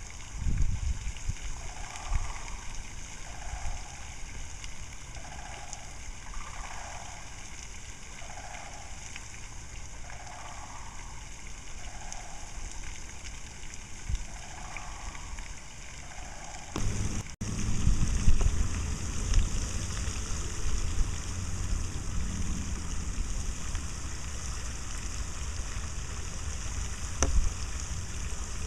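A pair of sandhill cranes calling repeatedly, short calls about once a second alternating higher and lower, over a steady hiss. The calls stop a little past halfway, and a low rumble on the microphone takes over.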